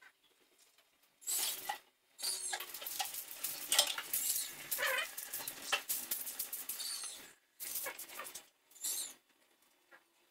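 Dishes and utensils clinking and clattering at a kitchen sink in irregular bursts, heard through a security camera's microphone that cuts the sound in and out abruptly.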